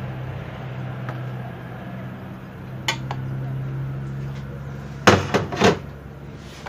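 An electric hand mixer hums steadily while beating cake batter. A little after five seconds comes a quick run of loud clinks and knocks of metal against a glass bowl.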